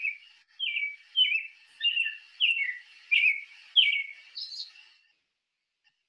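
A backyard bird calling: a string of about eight short whistled notes, each sliding down in pitch, roughly one every two-thirds of a second. The last note is higher and fainter, and the calling stops about five seconds in.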